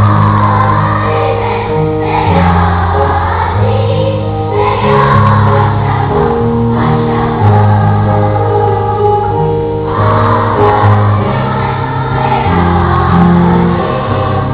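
Music with a choir singing over sustained low chords that change every second or two.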